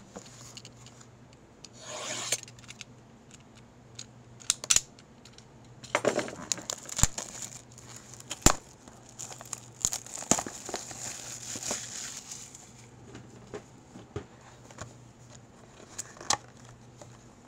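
Wrapping being torn off a cardboard hobby box of trading cards and the box opened by hand: tearing, rustling and crinkling in several spells, with scattered sharp clicks and taps from handling the box.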